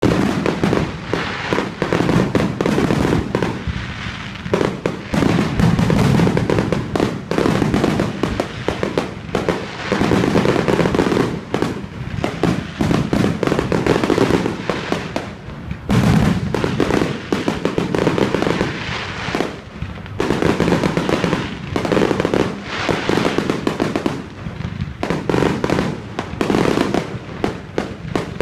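Fireworks going off in a dense, unbroken barrage of bangs and crackling.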